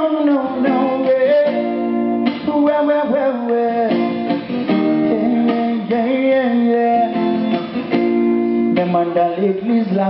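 A man singing a melody over strummed acoustic guitar chords, played live and unamplified-sounding.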